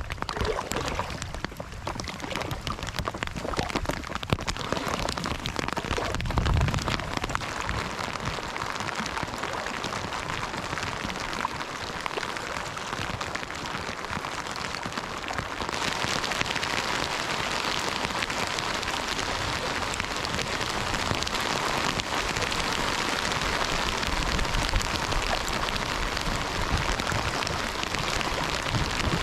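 Steady water noise, a dense patter of fine ticks that turns brighter and fuller about halfway through.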